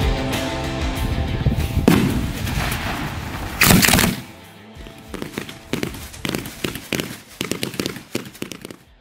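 Daytime fireworks firing over background music: two loud bangs in the first half, the second the loudest, then a quick run of sharp reports at about two a second from a smoke-comet battery, fading until the sound cuts off suddenly.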